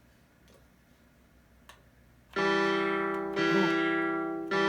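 Amiga 500's built-in sound playing a custom-drawn waveform in Aegis Sonix 2. After about two seconds of near silence with a couple of faint clicks, a sustained synth note starts and is played again about a second later, then once more near the end.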